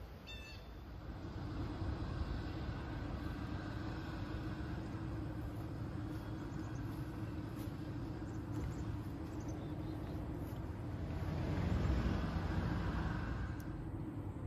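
Steady rumble of road traffic, with one vehicle passing that swells to its loudest about twelve seconds in and then fades.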